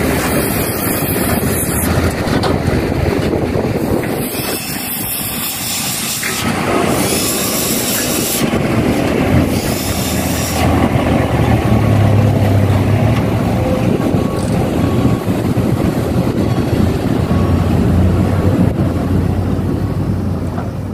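Heavy diesel engines of an excavator and dump trucks running steadily at a soil dig, a low engine hum that grows somewhat louder about halfway through.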